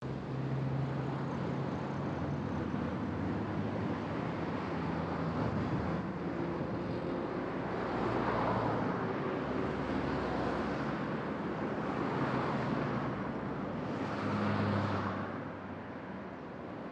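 Road traffic: a steady run of cars driving along a busy road, with engine hum under the tyre noise. From about eight seconds in, single cars pass close by roughly every two seconds, each swelling and fading.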